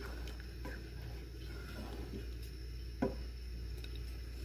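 Wooden spatula stirring thick dal in an open pressure cooker, with scattered light clicks and one sharper knock of the spatula against the pot about three seconds in, over a steady low hum.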